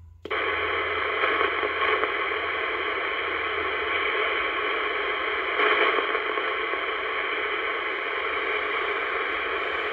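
Steady static hiss from a 1970s Royce 619 CB base station's speaker. It comes in suddenly just after the start, once the mic is unkeyed after a radio check, and holds steady with no reply coming back.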